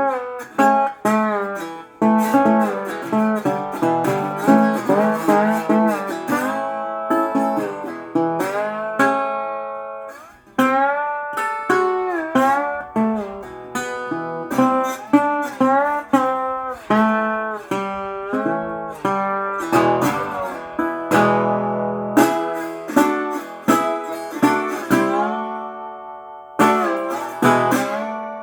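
Solo guitar played blues-style, plucked notes with pitches that slide and bend, with a couple of short pauses, heard with heavy reverb.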